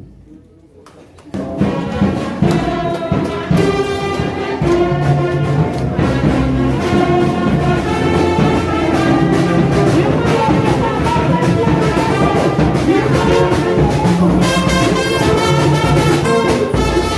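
Brass band music starts about a second in and plays on with a steady beat.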